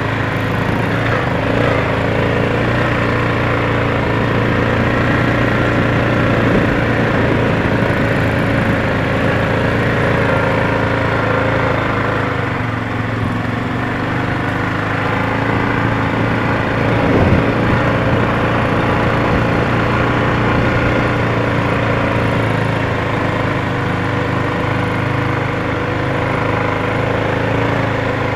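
Small off-road engines running steadily at low, even speed: the vehicle carrying the camera close behind, and a Honda 50 minibike with its small four-stroke single-cylinder engine ahead. One brief louder surge about two-thirds of the way through.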